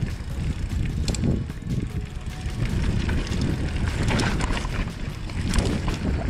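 Downhill mountain bike riding a dirt trail: a constant heavy low rumble of tyres on dirt, with scattered clicks and knocks from the bike rattling over the ground.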